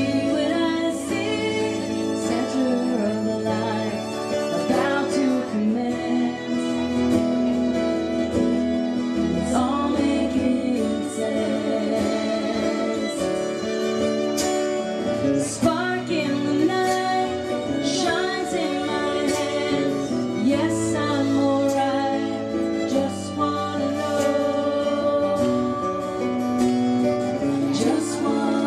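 Live acoustic band playing: strummed acoustic guitar and fiddle under two women's singing voices.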